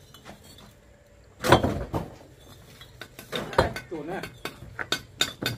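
A few sharp knocks and clinks of objects being handled, the loudest about one and a half seconds in and again past three and a half seconds, with a person's voice briefly around four seconds in.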